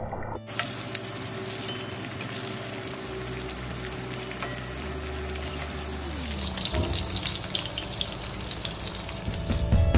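Bell pepper pakoras in gram-flour batter sizzling steadily as they deep-fry in hot oil in a steel kadai. This is their second fry, after being halved and dipped in batter again.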